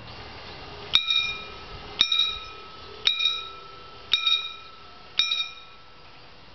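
Level-crossing warning bell striking five times, about once a second, each stroke ringing on briefly and the strokes stopping a little after five seconds in. This is the warning that rings while the crossing barriers are lowered.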